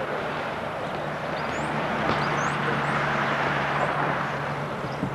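Engine drone of a passing vehicle over a steady low hum, swelling to a peak midway and easing off toward the end.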